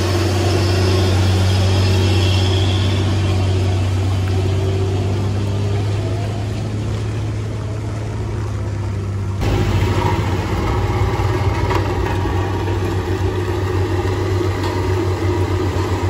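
Hino cargo truck's diesel engine running steadily as the truck pulls past and away, easing off slightly. About nine seconds in the sound cuts abruptly to another diesel engine with a throbbing beat.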